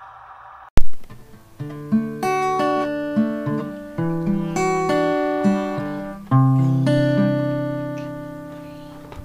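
Short outro music jingle of plucked and strummed guitar chords. It starts with a sharp strum about a second in, and its last chord, struck about six seconds in, rings out and fades until the sound cuts off at the end.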